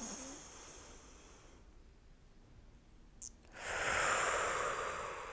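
A woman's deep guided breathing, close to the microphone: a breath in fading away, a lull with a small click, then a long breath out starting about three and a half seconds in.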